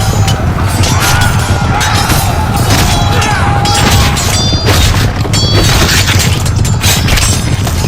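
Medieval battle sound effect: a war cry of many men shouting, with repeated clashing impacts and crashes over a dense, deep rumble.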